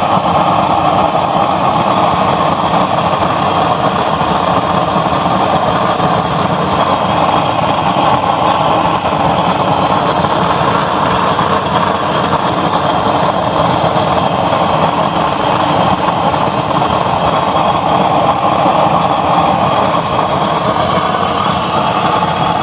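Homemade used-oil (waste-oil) burner running flat out with a blue flame: a loud, steady rushing noise of the forced-air flame and its blower, with a faint motor hum beneath.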